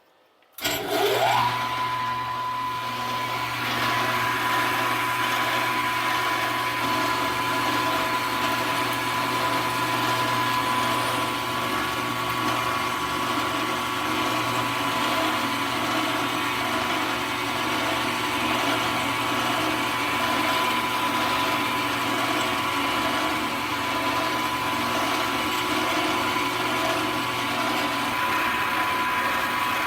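Milling machine spindle spinning up within the first second, then running steadily with a constant whine, as a new end mill cuts a groove in a steel spindle.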